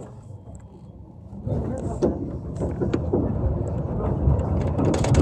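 A tram pulling away about a second and a half in: a low rumble of the motors and wheels on the rails rises, with scattered knocks and clicks from the running gear and track.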